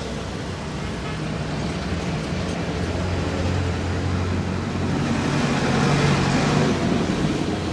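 Street traffic: a motor vehicle's engine running close by over steady road noise, growing louder through the middle and loudest about six seconds in.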